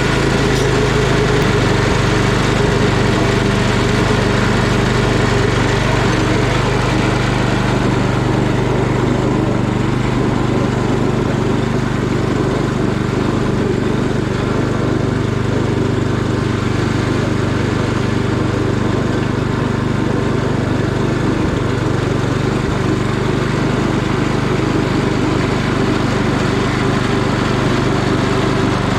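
Single-cylinder Tecumseh snow blower engine running steadily, without surging, on a freshly cleaned carburetor; its pitch shifts slightly about a second and a half in.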